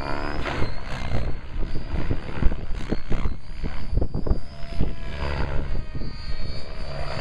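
Radio-controlled aerobatic helicopter flying, its motor and rotor blades whining, with the pitch gliding up and down as it throws the manoeuvres, over a rough, gusty rumble.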